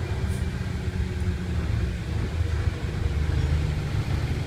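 Bus engine and road noise heard from inside the passenger cabin of a moving bus: a steady low rumble.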